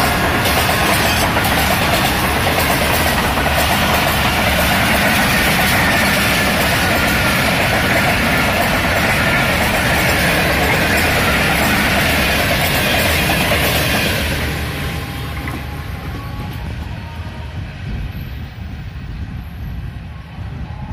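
Passenger train coaches running past at speed: a loud, steady rumble and rattle of wheels on rails that falls away sharply about two-thirds of the way through, as the last coach passes and the train moves off.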